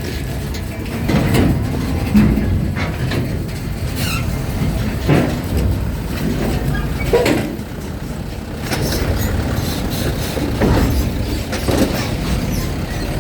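Trucks and cars driving onto a ferry, engines rumbling deep and steady, with irregular metallic clanks every second or two.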